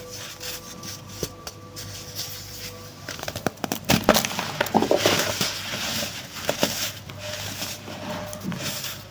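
Chunks of baking soda being crushed and crumbling: a crunchy crackle of many small snaps. It is sparse for the first three seconds or so, then grows dense and louder.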